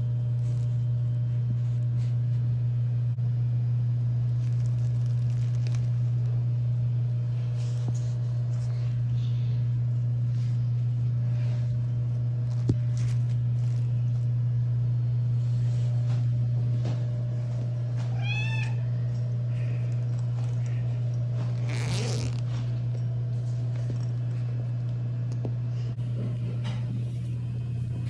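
Domestic cat meowing once, a short arched call about eighteen seconds in, over a loud steady low hum.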